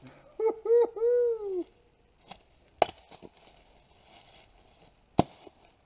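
A double-bit axe striking and splitting dry arbutus (madrone) firewood: two sharp loud strikes about two and a half seconds apart, with lighter knocks of wood near the first. It opens with a short high-pitched call of three quick rising-and-falling notes and one longer one.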